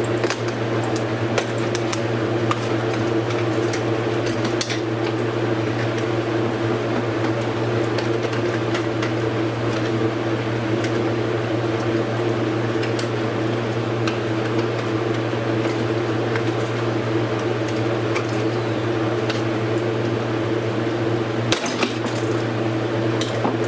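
Steady electric motor hum, like a running fan, with scattered light clicks and taps of small parts being handled.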